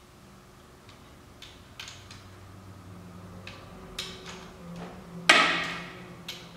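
A long-handled wrench loosening torqued bolts on a 1997 Polaris Sportsman 500 engine: a few light clicks, then about five seconds in a loud, sharp metallic crack with a short ringing tail as a bolt breaks loose.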